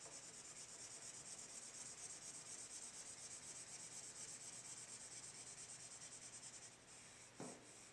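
Felt-tip marker scratching across cardstock in quick, even back-and-forth strokes while colouring in a shape. The strokes stop shortly before the end, followed by a brief soft knock.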